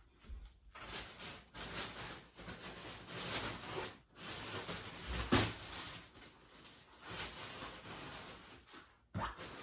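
Rustling and handling noises of a person moving about and rummaging, with one sharper knock a little after five seconds in.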